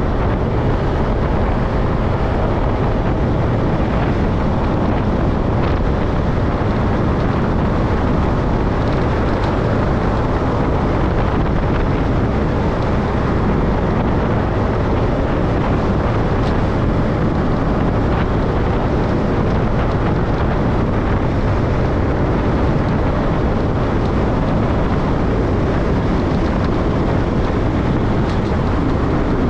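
Steady wind rush on the microphone over the low drone of a road vehicle travelling at speed, unchanging throughout.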